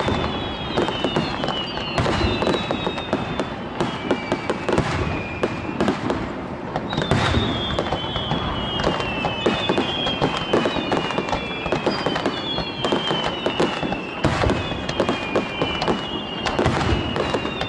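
Fireworks display: a dense run of bangs and crackling, with many whistles that fall slowly in pitch, overlapping throughout.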